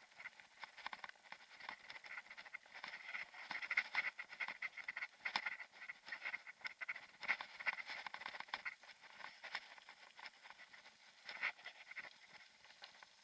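Mountain bike rolling over a rough dirt and gravel forest track, heard through an action camera as a stream of rapid, irregular clicks and rattles. It is busiest in the middle of the stretch and thins out toward the end.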